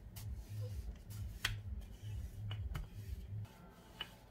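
Wooden rolling pin rolling out pizza dough on a stone countertop: a low rumble with each back-and-forth stroke, about two strokes a second, with a few sharp clicks as the pin knocks the counter. The rolling stops about three and a half seconds in.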